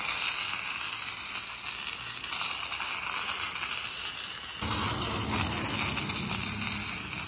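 Aerosol can of truck bed liner spray paint spraying with a steady hiss, as the coating goes onto the aluminum hull.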